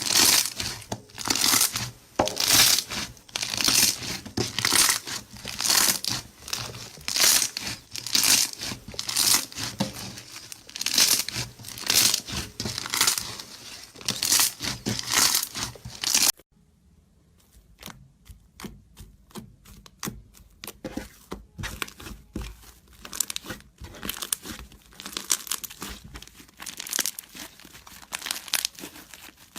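Slime being squeezed and worked by hand, making noisy crackly squishes about twice a second. About two-thirds of the way in, the sound cuts to a quieter stretch of many small sharp clicks and pops.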